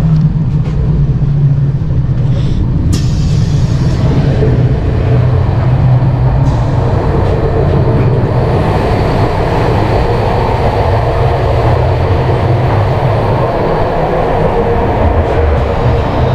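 Steady rumble of a moving passenger train heard from inside the carriage: wheels running on the rails, with a sharp click about three seconds in. The noise turns harsher from about halfway, as the connecting door to the next carriage is reached.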